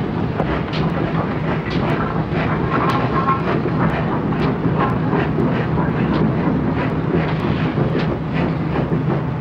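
Great Western Railway steam locomotive working: a steady, loud rumble with irregular clanks and knocks.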